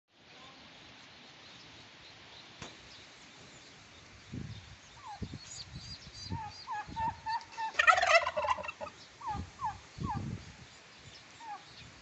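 Tom turkey gobbling once, a loud rattling call about eight seconds in, among short high calls from the flock. A few low thumps come and go between them.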